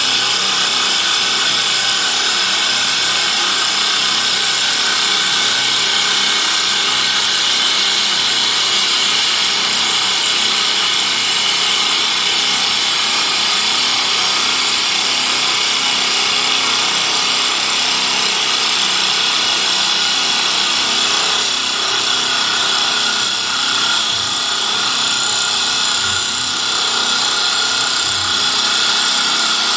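Double-head, four-knife CNC wood lathe cutting two wooden spindles at high speed: a steady high whine with the rasp of knives taking off wood chips.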